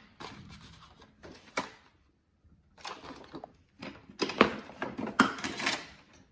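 Handling sounds of small plastic toy pieces and packaging: scattered clicks, taps and rattles, with a moment of dead silence about two seconds in and a busier run of clicking near the end.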